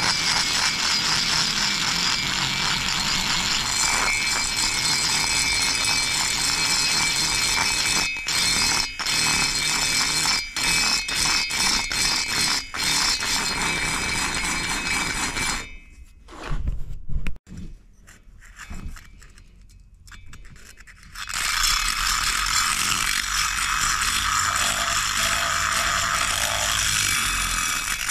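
A rotary grinder cuts the intake port of a Husqvarna 350 chainsaw cylinder, first with a carbide burr, a steady high-pitched grinding broken by a few short dropouts. About two-thirds in it stops for about five seconds with a few knocks, then starts again with a different, lower-pitched grind from a sanding cartridge roll.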